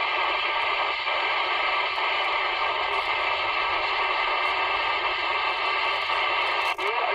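Steady hiss and static from a 27 MHz CB radio's speaker between transmissions, the band noise of an open channel with no station coming through. A voice begins to break through the hiss right at the end.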